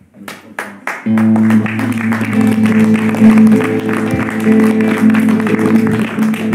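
Live music on electric guitar and keyboard: a few picked notes, then the band comes in fully about a second in with steady held chords under the guitar.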